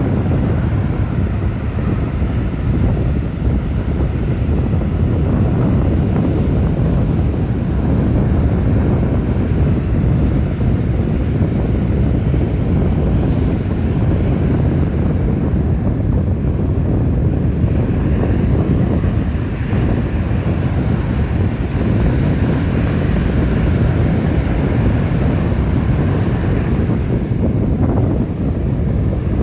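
Strong wind blowing across the microphone: a loud, steady rumble.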